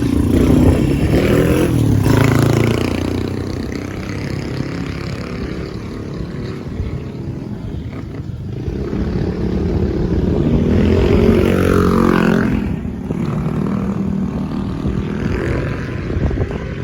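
A vehicle engine running, its pitch rising and falling as it speeds up and slows down.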